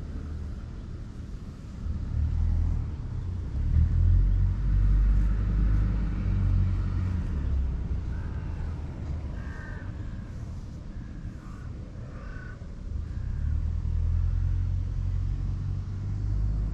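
A low rumble that swells twice, a few seconds at a time, with a few short faint calls in between.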